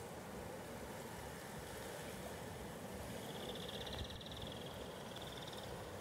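Steady rush of a swollen river in flood. About three seconds in, a high, rapidly pulsed animal trill rises over it for nearly three seconds, then stops.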